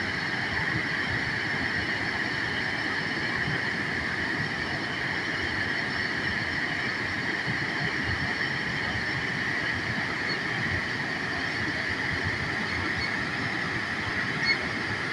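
Waterfall rushing, a steady, unbroken roar, with a steady high-pitched ringing drone laid over it.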